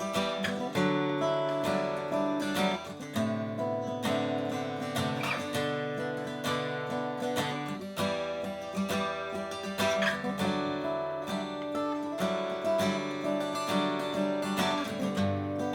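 A 1954 Martin 000-18 acoustic guitar being played, notes plucked and strummed in a continuous run.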